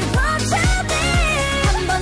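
Background pop song with a steady kick-drum beat, about two beats a second, under a sung melody.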